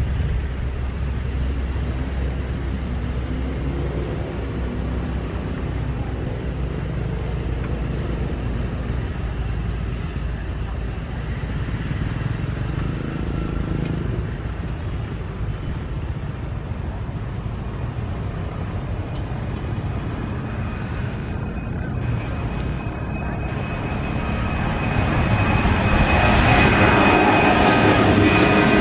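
Twin-engine jet airliner taking off, its engines at takeoff thrust. The sound grows louder from about three-quarters of the way in, with a high engine whine, as the jet climbs out low overhead.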